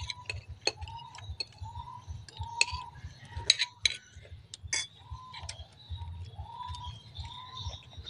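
Metal spoons clicking and scraping against ceramic bowls and plates during a meal, in irregular taps. A short chirping call repeats about once a second underneath.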